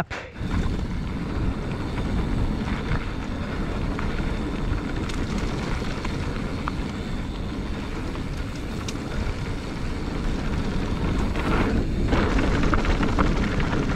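Steady rumbling rush of wind on the microphone and tyres rolling over dirt as a mountain bike is ridden on a lap, heard from a camera on the bike or rider.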